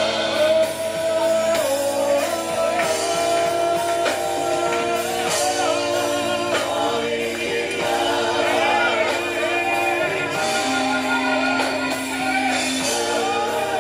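Gospel song sung live, a voice with wavering vibrato over long held instrumental chords.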